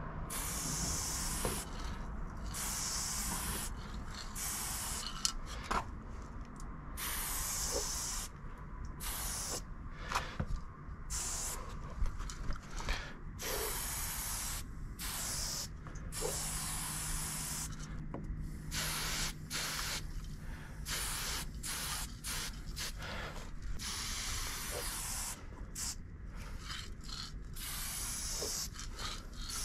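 Aerosol spray paint can hissing in repeated bursts of a second or two, with short pauses between, as graffiti letters are filled in and outlined.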